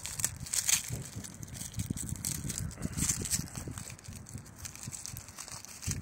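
Paper wrapping of a pack of Bo Peep pyrocrackers being torn open and crinkled by hand, with irregular rustles and crackles.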